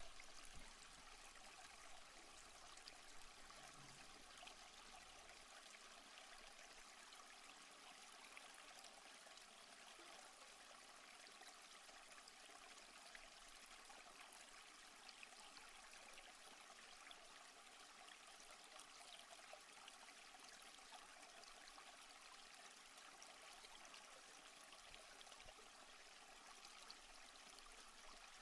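Faint, steady rush of running water from a rocky stream.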